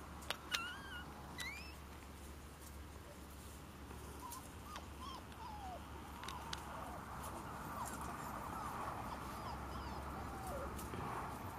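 Four-week-old Golden Retriever puppies whimpering: many short, high whines that bend up and down in pitch, with two sharper cries near the start.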